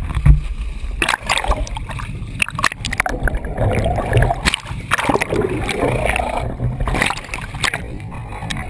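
Water rushing and gurgling over a camera housing plunged under the sea surface beside the boat, with repeated splashes and knocks, over a steady low rumble.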